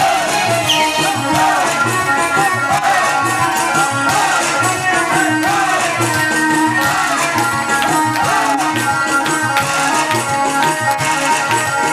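Live samra music: hand drums beating a steady rhythm under a munshid's chanted singing.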